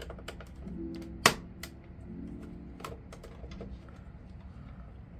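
Small sharp clicks and taps of screws and plastic parts being handled during PS4 disassembly, scattered irregularly, with one louder click a little over a second in, over soft plucked-guitar background music.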